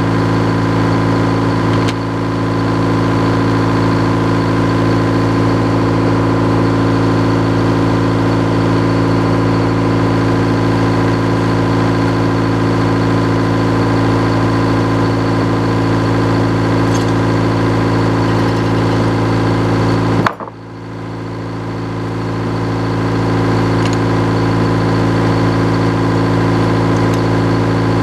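Sawmill engine running steadily, throttled down. About two-thirds of the way through there is a sharp click, after which the sound drops briefly and builds back up.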